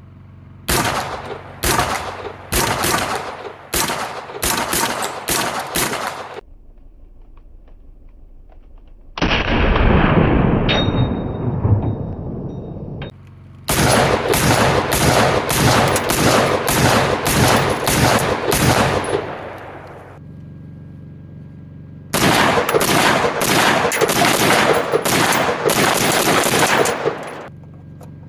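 Rifle gunshots fired in quick strings of about two a second, three strings in all. Between the first and second strings comes a loud rumbling noise that fades over a few seconds.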